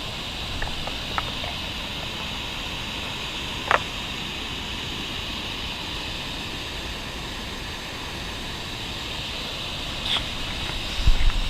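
Waterfall rushing in a steady, even roar of falling water, with a few faint clicks and one short sharp sound about four seconds in.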